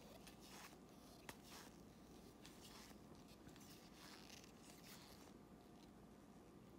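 Near silence, with faint soft rustles of trading cards being slid one by one through nitrile-gloved hands, and one small click about a second in.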